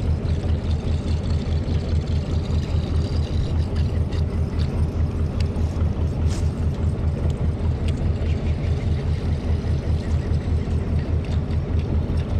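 A wooden river boat's engine running steadily at low speed: a constant low, fast-pulsing throb.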